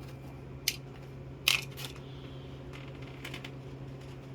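Small metal transmission valve-body parts clicking and clinking as they are handled and set down on a workbench: a handful of short sharp clicks, the loudest about a second and a half in, over a steady low hum.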